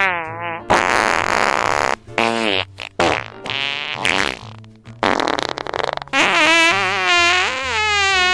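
A run of fart sounds in the pace of a conversation, some pitched and wavering, some rough and sputtering, with short gaps between them and a long wavering one near the end. They stand in for spoken lines. Background music with low bass notes underneath.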